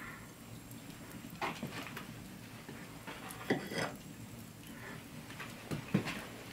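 Plate and food being handled, with a few short clinks and knocks, over the light crackle of an open hearth fire.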